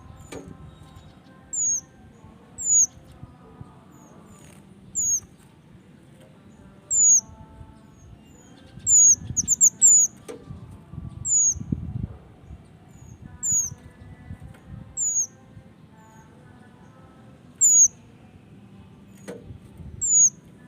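Male minivet (mantenan) calling: short, high, sharp notes that drop in pitch, repeated every second or two, with a quick run of three or four near the middle. Low rustling and a few soft bumps underneath.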